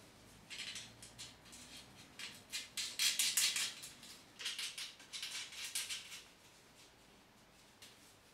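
Light metal clinks and rattles of a steel brace, bolts and washers being handled and fitted against a steel leg stand: a run of quick small knocks, loudest midway.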